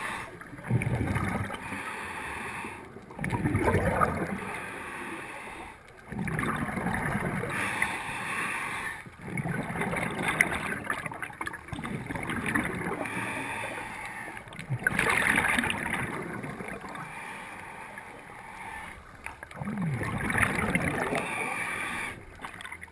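Scuba diver breathing through a regulator underwater: gurgling exhaled bubbles alternating with the hiss of inhalation, repeating every few seconds.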